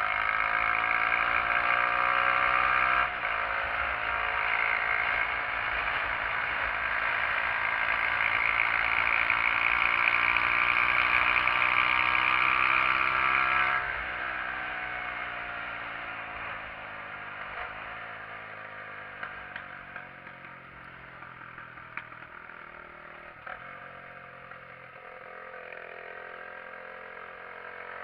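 SYM XS125-K motorcycle's 125 cc single-cylinder engine pulling under throttle. Its note rises, steps down briefly about three seconds in as it shifts gear, and climbs again. About fourteen seconds in the throttle closes and the engine note falls away, quieter, as the bike slows.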